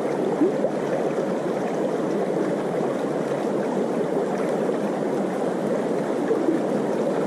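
Small river running, a steady rush of shallow water over stones.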